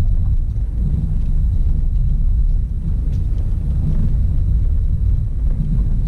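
Car driving down a dirt road, heard from inside the cabin: a steady low rumble of engine and tyres on the rough track.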